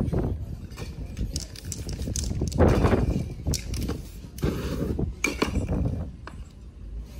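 Aerosol spray-paint can spraying onto a canvas in short hissing bursts, one about two and a half seconds in and another about four and a half seconds in, with a few sharp clicks between them.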